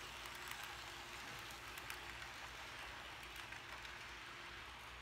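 Model train double-stack container cars rolling past on the layout track: a steady whirring hiss with scattered light clicks.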